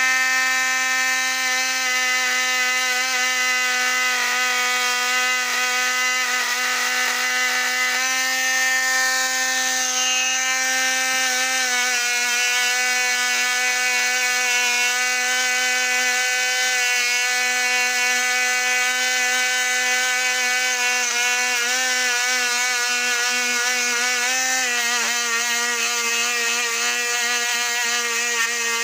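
Small handheld rotary tool spinning a wire brush against the wheels of a Lionel 1065 locomotive's motor truck, cleaning off grime: a steady whine that dips slightly in pitch about twelve seconds in and again near the end.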